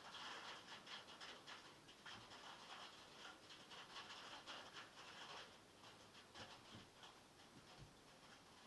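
Heavy rain falling on metal, heard faintly as a dense, fast, uneven patter of drop ticks, a little heavier in the first half.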